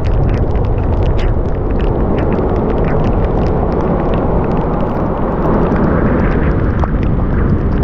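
Strong wind buffeting the microphone in a heavy downpour: a dense, steady low rumble with many small ticks of raindrops striking through it.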